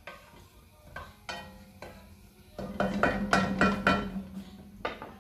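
Wooden spoon knocking and scraping against an aluminium frying pan while stirring garlic cloves in olive oil. A few scattered knocks come first, then a quick run of louder, ringing knocks on the pan between about two and a half and four seconds in, and one last knock near the end.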